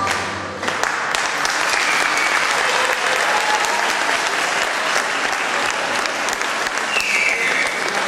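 Audience applauding: many people clapping steadily in a large hall, after the last notes of music die away in the first second.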